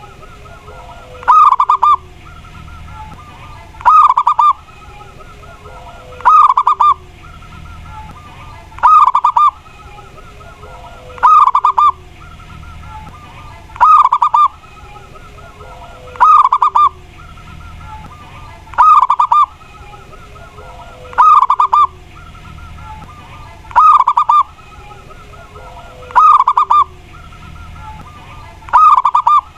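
Mataram zebra dove (perkutut) singing its cooing song, the same short phrase repeated about every two and a half seconds, roughly eleven times.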